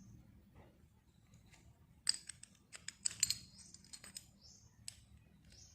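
Small metal sewing-machine shuttle parts clicking and clinking as they are handled during cleaning: a faint run of sharp metallic clicks, bunched from about two seconds in to near the end.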